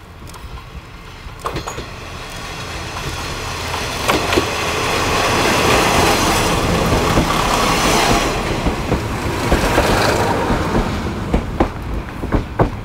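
KiHa 58-series diesel express railcars running past close by. The engine and wheel noise builds to a peak midway and then fades, with sharp clacks as the wheels cross rail joints, the last few near the end.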